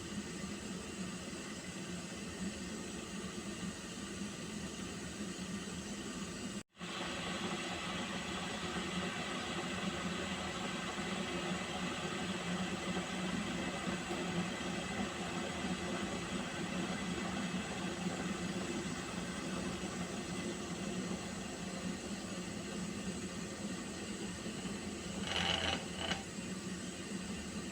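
Water heating in a pot with a steady hiss, breaking off for an instant about seven seconds in, and a brief louder rattle near the end.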